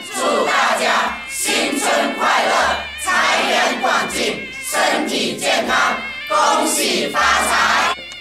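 A group of a couple of dozen men and women chanting Chinese New Year wishes in unison: loud phrases about a second and a half long, each followed by a brief pause.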